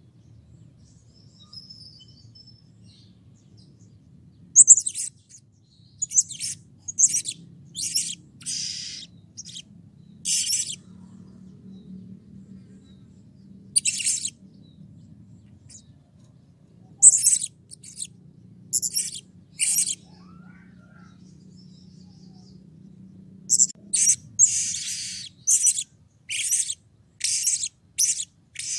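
Blue-crowned hanging parrot (serindit) giving short, sharp, high-pitched chirps in quick runs: about seven from about four seconds in, a single one near the middle, a few more about two-thirds through, and a dense run near the end. A faint steady low hum lies underneath.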